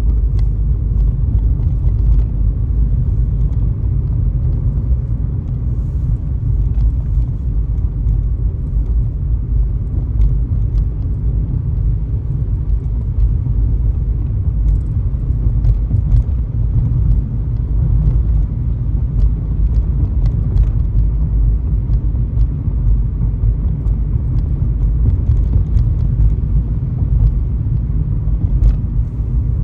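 Steady low road rumble of a car driving on the highway, with scattered faint ticks.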